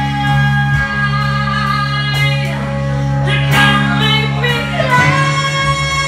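Live band playing a song: a woman singing over electric bass and guitar.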